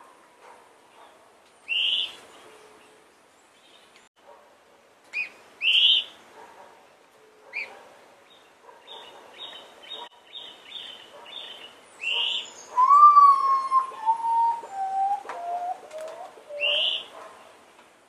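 Common potoo singing its mournful series of whistled notes, each a step lower than the last, about five notes over four seconds starting about twelve seconds in; the first note is the loudest. Other small birds give short, sharp rising chirps throughout and a quick run of repeated notes in the middle.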